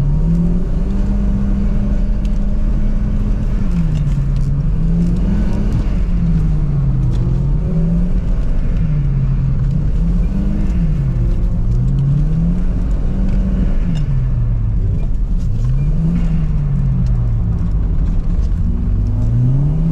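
Car engine held in second gear while drifting on ice, its revs swinging up and down every couple of seconds over a steady low rumble.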